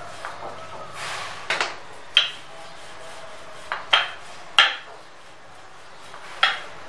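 Wooden rolling pin rolling out paratha dough on a silicone mat: a soft rub, then about six sharp clacks at irregular intervals.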